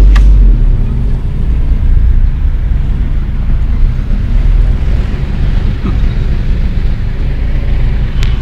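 Steady low rumble of a moving vehicle's engine and road noise, heard from inside the vehicle, heaviest in the first half second.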